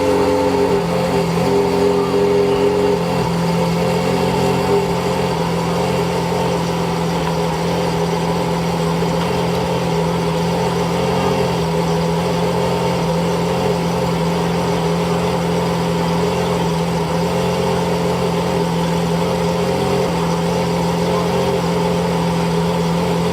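Lamborghini engine idling steadily at an even pitch, with no revving.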